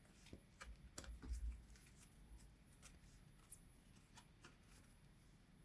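Faint handling of photo cards: scattered light clicks and rustles as the cards are picked up and laid down, with a dull low thump about a second in.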